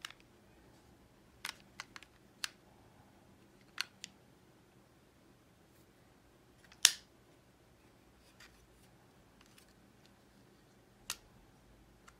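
Plastic flip-top lid of a Starbucks JNM stainless tumbler clicking and snapping as it is handled, a dozen or so separate sharp clicks with one loud snap near the middle.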